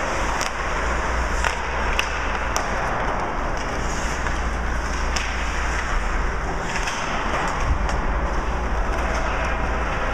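Ice hockey play on the rink: skate blades scraping the ice over a steady low rumble, with a few sharp clacks of sticks and puck scattered through.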